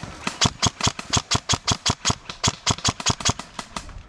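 Airsoft gun firing on full auto: a fast, even string of sharp shots, about eight or nine a second, that stops just before the end.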